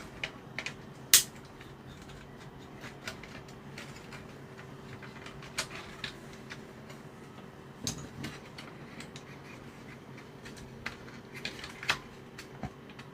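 Scattered small clicks and taps of plastic and metal parts being handled as a toy remote controller is taken apart, with one sharp click about a second in the loudest. A faint steady hum runs underneath.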